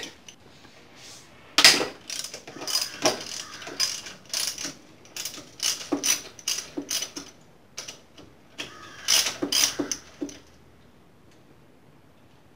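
Hand socket ratchet clicking in quick bursts with short pauses as a 12 mm fork clamp bolt on the motorcycle's lower triple tree is loosened. The clicking starts a little over a second in and stops about ten seconds in.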